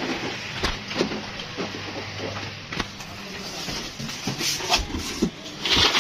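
Scattered knocks and clatters from a steel tray of batasha sugar drops being handled, then near the end a loud rushing, rustling pour as the sugar drops are tipped off the tray into a cardboard box.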